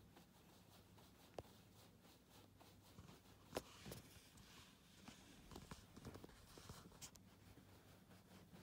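Near silence: faint room tone with a low hum, light rustling and a few soft clicks, the clearest about three and a half seconds in.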